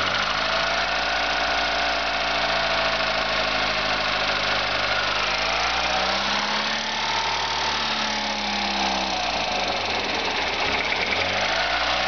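VW Golf 4 1.4 four-cylinder petrol engine running at idle. Its speed rises and falls slowly about halfway through, then lifts briefly again near the end. The owner wonders whether the engine's sound points to a problem.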